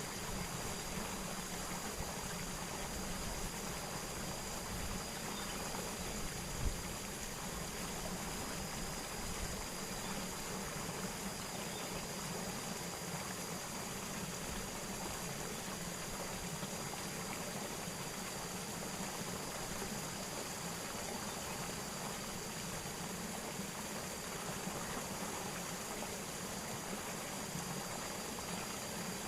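Steady rush of flowing water, with a thin high whine held throughout and a single brief tap about seven seconds in.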